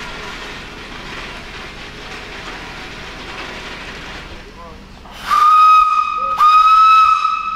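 Steam hissing from a narrow-gauge Isle of Man Railway tank locomotive, then, about five seconds in, its steam whistle sounds: one steady note in two loud blasts with a short break between, the second trailing off softer.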